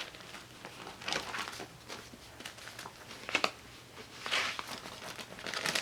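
Paper sticker sheets being handled and stickers placed on planner pages: soft rustling and crinkling with a few short taps and clicks.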